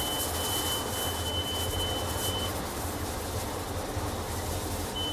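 Steady machine hum with a constant hiss over it, and a thin high whine that stops about halfway through and briefly returns near the end.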